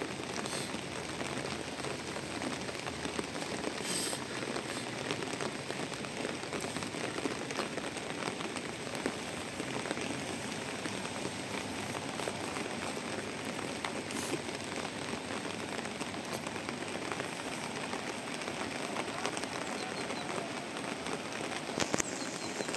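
Steady rain falling: an even hiss with a few sharper ticks of drops hitting.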